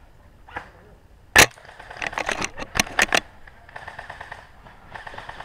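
Airsoft VSR-10 spring bolt-action sniper rifle firing one sharp shot about a second and a half in, followed by a quick run of clicks and knocks. Rapid faint ticking follows near the end.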